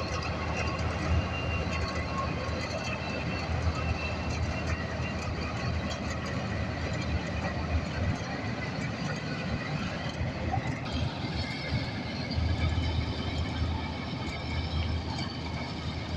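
Preet 987 combine harvester running steadily, engine and machinery making a continuous rumble with faint steady high tones; a higher hiss joins about eleven seconds in.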